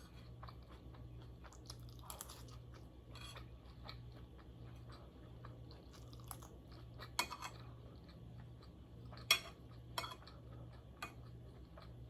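Close-miked chewing and crunching of food in a mukbang, with scattered sharp clicks, the loudest about seven and nine seconds in. A faint low hum pulses on and off evenly underneath.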